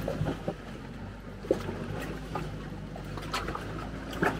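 Sherp amphibious ATV's diesel engine running steadily as it pushes through broken river ice and water, with a few short knocks of ice chunks against the vehicle.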